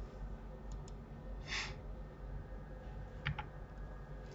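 Quiet room tone with a low hum and a few soft clicks of a computer mouse and keyboard: two faint clicks near the start and a pair a little past three seconds in. A short breath sounds about one and a half seconds in.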